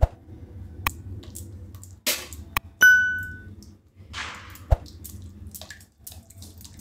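A silicone spatula stirring thick white sauce in a metal kadai: soft swishes and a few sharp clicks over a low steady hum. One bright ringing ding, the loudest sound, comes about three seconds in and fades within a second.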